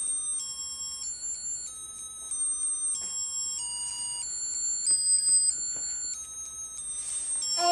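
Electronic toy tune: high, pure beeping notes that step from pitch to pitch every fraction of a second in a simple melody.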